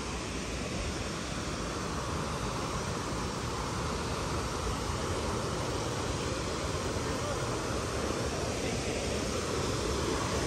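Steady rushing of a large waterfall and its creek, a constant even wash of water noise that grows slightly louder toward the end.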